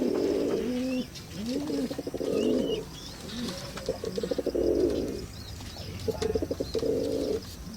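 Pigeon repeatedly cooing in low arched calls and longer throbbing calls, with a few faint high squeaks. These are the calls of an angry, defensive mother pigeon guarding her young.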